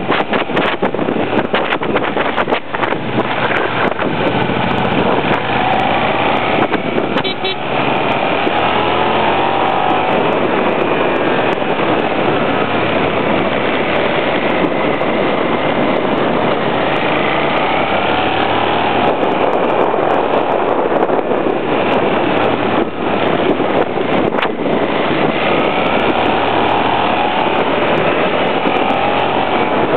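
Motorcycle engine heard from on board a moving bike, its pitch rising and falling as it is revved through a series of bends, under loud wind rush on the microphone.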